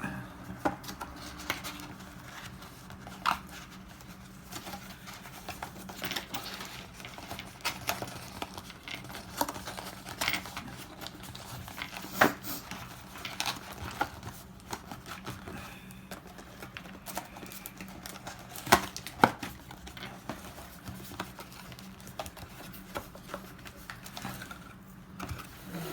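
Hands working open a booster box's cardboard and plastic packaging: crinkling and rustling with scattered sharp clicks and taps, over a steady low hum.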